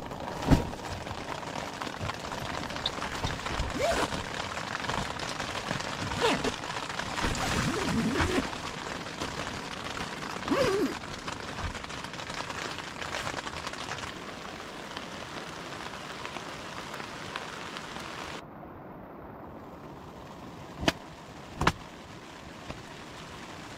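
Heavy rain pouring down and pattering on a nylon tent, with scattered knocks and rustles. About three-quarters of the way through it drops to a quieter, duller patter, and two sharp clicks follow near the end.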